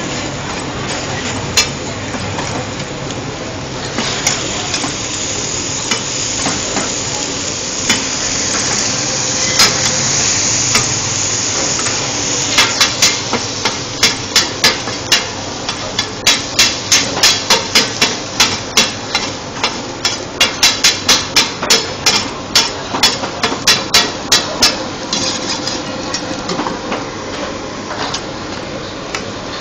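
Metal spatula striking and scraping a hot wok in a long run of quick strokes, about three a second, over the steady sizzle of fried oyster cooking in oil.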